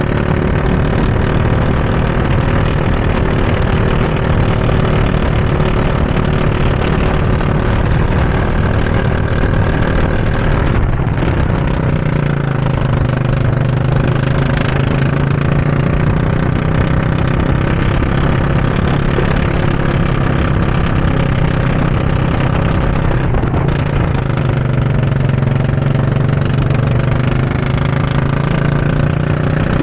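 Go-kart engine heard from on board, running hard at lap pace. Twice, about a third of the way in and again about two thirds in, its pitch drops and then climbs back.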